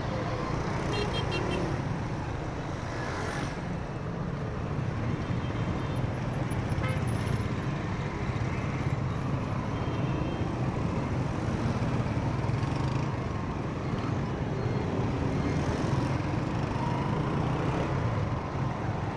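Motorcycle engine running steadily while riding in dense city traffic, with the steady noise of road and surrounding vehicles.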